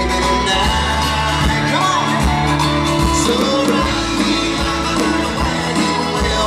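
A live rock band playing on stage with guitars and drums, and a singer's voice coming through the mix.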